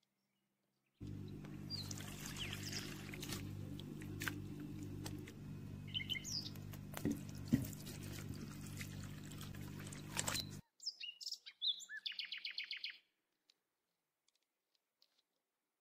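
Water poured over freshly curdled paneer in a cloth strainer, rinsing out the vinegar, a steady splashing pour with a low hum underneath that cuts off suddenly about ten and a half seconds in. Small birds chirp over it and briefly after it stops.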